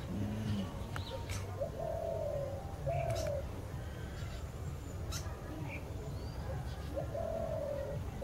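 A dove cooing in the background: three low, slightly falling coos of about half a second each, two in the first few seconds and one near the end, with a few faint, short, high chirps from small birds.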